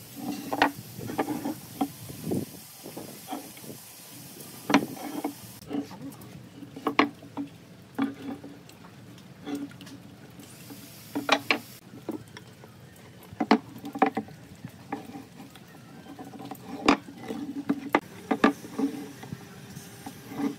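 Wooden marking gauge's steel pins scratching along wooden boards as lines are scribed, with sharp knocks now and then as boards and the gauge are set down on the workbench.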